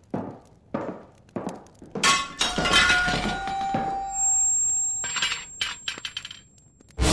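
Slow footsteps on a hard floor, then a sudden shattering crash of something brittle breaking, its pieces ringing for a few seconds and then clinking and rattling as they settle. Loud music comes in just at the end.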